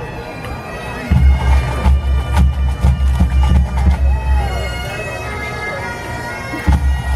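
Pipe band playing: bagpipes sounding with their steady drones under the tune, and a bass drum beating a steady pulse from about a second in. The drum drops out for a couple of seconds near the end, then comes back in.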